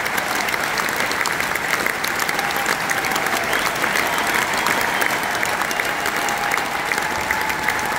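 Large arena crowd applauding, a dense, steady clapping.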